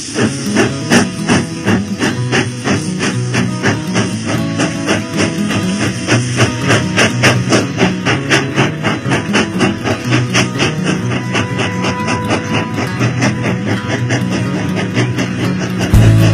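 Music with guitar over a quick, steady beat, getting louder near the end.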